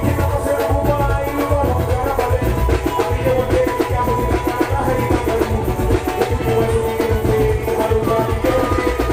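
Loud live Garifuna band music with a steady, driving drum beat under held melodic tones.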